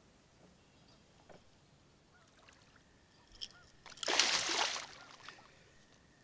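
A hooked channel catfish splashing at the surface beside a kayak: one loud splash lasting under a second about four seconds in, over a quiet lake background with a few faint bird chirps.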